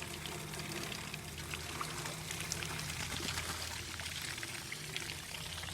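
Water pouring and splashing steadily as the ducks' water pool is dumped out.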